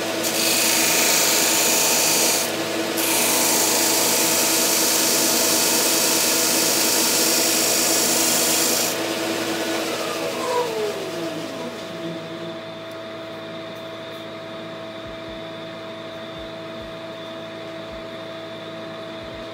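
Wood pressed against the spinning sanding disc of a GIB BDS-610 belt-and-disc sander, with a short break about two and a half seconds in. The sanding stops about nine seconds in, the motor is switched off and winds down with a falling whine, and a quieter steady hum from the dust-extraction vacuum carries on.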